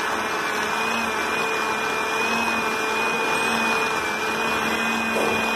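Shinon electric food chopper running steadily, its blades grinding cooked shami kabab mixture of meat and lentils. The motor gives a steady high whine over the grinding.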